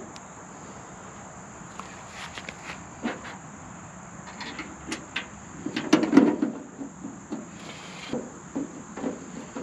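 Scattered metal clicks and knocks of a bracket being fastened by hand to the front of an old Ford tractor, with a louder cluster of knocks about six seconds in. A steady high insect drone runs underneath.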